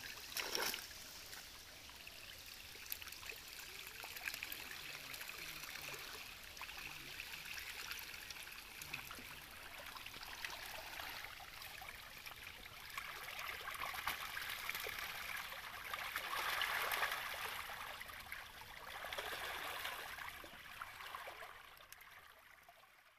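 Many fish thrashing and splashing at the water's surface, crowded inside a gill net being drawn in a shallow pond. The small splashes run on without a break, swell louder twice in the second half, and fade out at the end.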